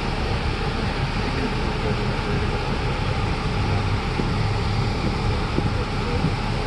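Steady running noise of a moving tour bus, a low engine hum under road and wind noise, heard from the bus's open top deck.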